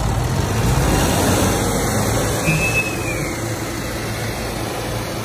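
Two tractor diesel engines, a Ford 3610 and a Mahindra Arjun 605, running at full load as they pull against each other in a tug-of-war. A brief high whistle sounds about halfway through.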